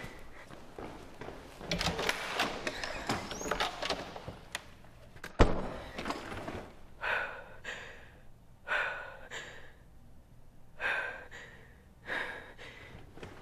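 A clatter of small knocks, then a single loud thud about five seconds in, followed by a person's sharp, gasping breaths coming in pairs.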